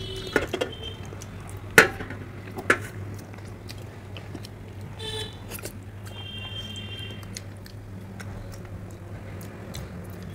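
Close-miked eating of ripe mango slices by hand: soft sucking and chewing, with a few sharp clicks in the first three seconds, the loudest about two seconds in, over a steady low hum.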